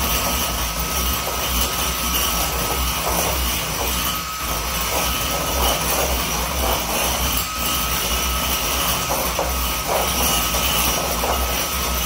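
Electric hand mixer running steadily with a thin whine, its beaters whisking egg whites in a glass bowl, beating them toward stiff peaks.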